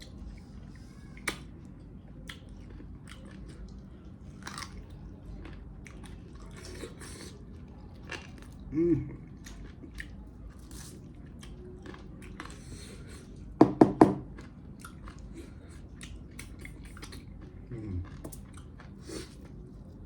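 A person chewing and biting into pieces of mutton leg close to the microphone: wet mouth smacks and small crunches throughout. There is a brief hum about nine seconds in, and three quick loud knocks about two-thirds of the way through.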